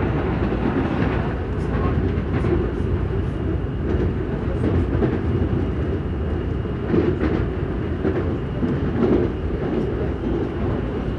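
CPTM Série 8000 electric commuter train running, with a steady low rumble from its traction and the wheels on the rails, a faint steady high tone, and a few light clicks.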